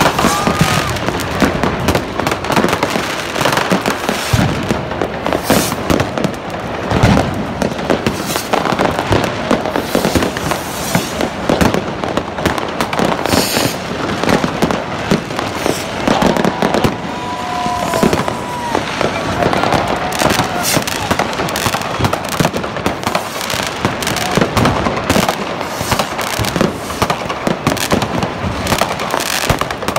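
New Year's Eve street fireworks going off nonstop: a dense run of firecracker bangs and crackles with rocket bursts, over the voices of a large crowd.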